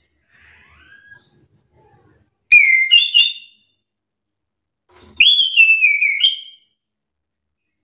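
Chestnut-capped thrush (anis kembang) singing: two loud, clear whistled phrases about two and a half seconds apart, each sliding up and down in pitch, after a faint soft note near the start.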